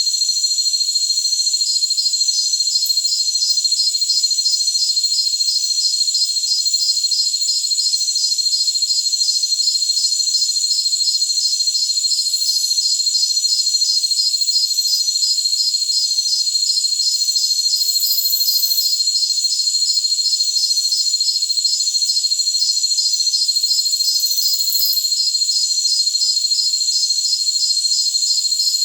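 Chorus of jungle crickets: a steady, high-pitched trill with a second cricket's pulsing chirp repeating several times a second on top, all high and thin with no low sound beneath.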